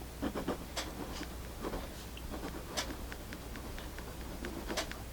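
Vintage Sanford Digit 0.7 mm mechanical pencil writing on paper: soft scratching strokes and small clicks. A sharp, regular tick about every two seconds sounds over it.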